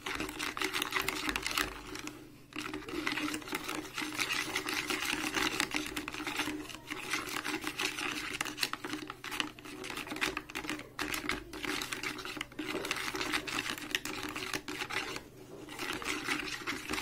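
Steel spoon stirring grainy, undissolved sugar in a plastic bowl of water and liquid hand wash, a steady gritty scraping and clicking against the bowl. It breaks off briefly about two seconds in and again near the end.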